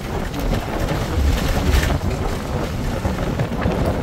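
Steady low rumbling vehicle noise of a bus running.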